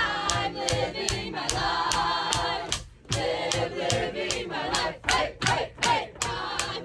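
A group of performers singing together in chorus while clapping on the beat, about two to three claps a second; the singing breaks off briefly about three seconds in.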